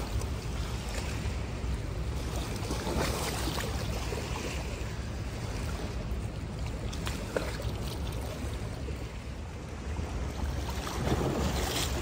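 Wind buffeting the phone's microphone over the steady wash of river water.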